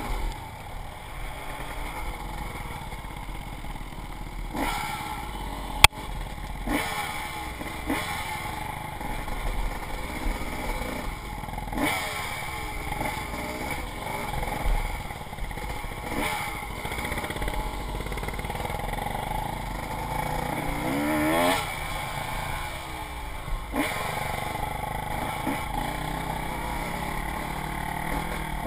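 Dirt bike engine running and revving up and down as it is ridden over rough trail, with clatter from the bike. A single sharp knock about six seconds in.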